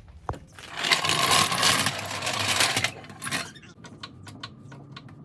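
Tools at work on a truck wheel: a loud, rough rattling noise lasting about two seconds, then a run of sharp metallic clicks and clinks.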